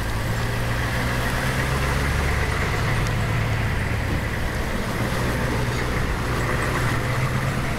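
A motor vehicle's engine running steadily, a low hum with a hiss over it.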